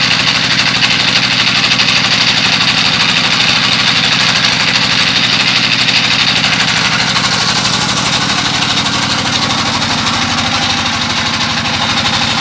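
A boat's engine running steadily at low speed with a fast, even beat and a hiss above it.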